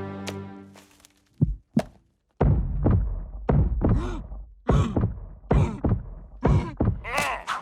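Cartoon impact sound effects: as music fades out, two short thumps, then a brief pause and a run of about ten heavy thuds or knocks, roughly two a second.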